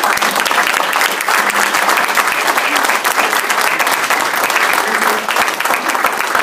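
Audience applauding: many hands clapping steadily in a meeting room, with a few voices mixed in.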